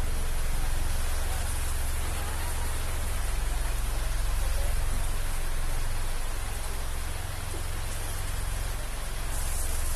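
Heavy rain pouring steadily onto market-stall umbrellas and canvas awnings, a constant hiss with a low rumble underneath.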